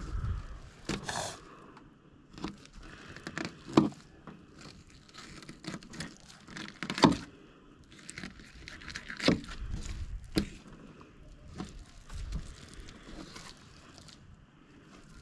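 Fillet knife slicing and scraping raw fish on a plastic board: irregular scrapes and crinkling broken by scattered sharp clicks and taps.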